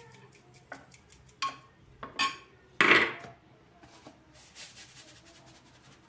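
Glass spice shakers and a spoon clinking and knocking against a glass baking dish and the countertop, several sharp clinks with the loudest a little before three seconds in. After that comes a soft, fine patter of seasoning being shaken out.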